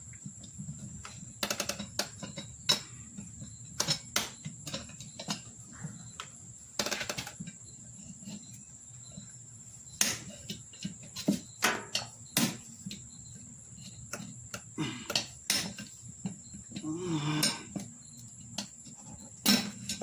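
Irregular clicks and knocks of pliers gripping and working a tubeless valve stem out of a riding lawnmower wheel rim. A faint steady high tone runs underneath.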